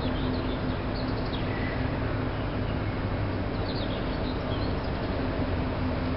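Steady machinery drone with a constant low hum, typical of an incinerator plant. Faint, short, high bird chirps come through it about a second in and again around four seconds in.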